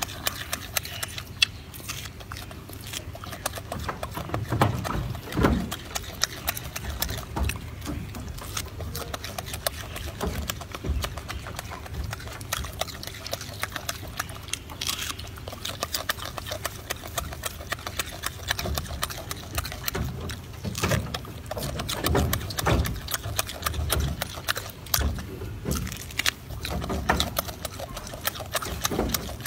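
Golden snub-nosed monkey eating orange close up: wet chewing and mouth smacking, with irregular clicks and soft low thumps.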